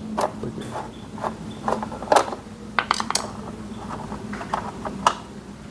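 Screwdriver turned by hand, backing small screws out of a motorcycle's lower fairing panel: irregular light clicks and ticks of the tool and screws.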